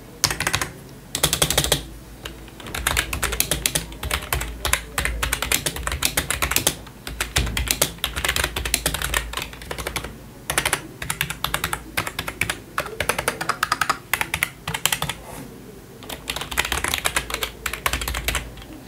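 Fast typing on a Circle Battle Pro semi-mechanical gaming keyboard: rapid runs of key clicks and clacks in bursts, with short pauses between them.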